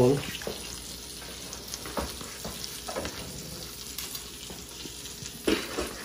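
Oil and duck breasts sizzling steadily in a hot cast-iron skillet just taken out of the oven. A few short clicks and scrapes come from a knife and fork slicing cooked duck on a plastic cutting mat; the loudest is about five and a half seconds in.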